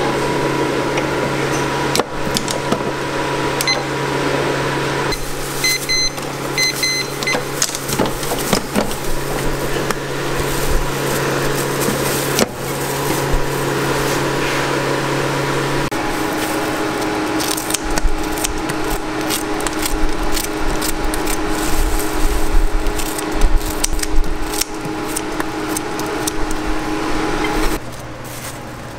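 Steady electrical machine hum in a waffle-stand kitchen, with clicks, knocks and clatter of the waffle irons and utensils being handled, busiest in the second half. A few short electronic beeps sound about five to seven seconds in.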